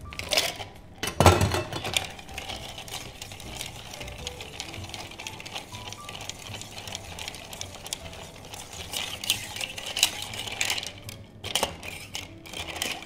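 Ice cubes tipped from a metal scoop into a metal mixing tin, a loud clatter about a second in, then a bar spoon stirring the ice in the tin: a steady light rattle and clinking of ice against metal.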